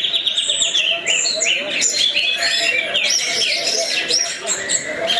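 Orange-headed thrush (anis merah) in continuous song: a non-stop run of varied, quick whistled phrases and trills, opening with a fast, even rattle. This unbroken delivery is the 'teler' style that keepers prize.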